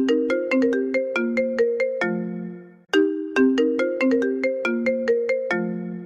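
Phone ringtone: a short, quick melody of struck notes that ends on a held low chord and starts over about three seconds in.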